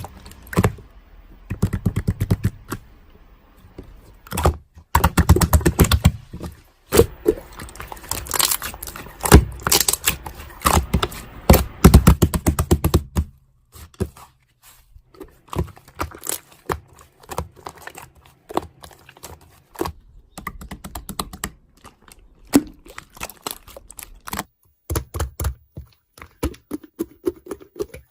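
Rapid, irregular clicking and tapping in dense runs with short breaks. It is busiest from about five to thirteen seconds in, then sparser.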